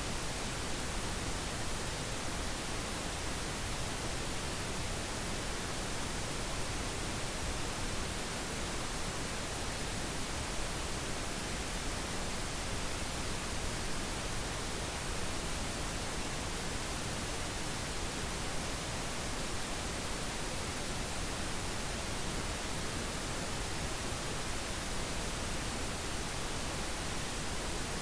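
Steady synthetic pink noise: an even, unchanging hiss spread across the whole range, with no tones or breaks.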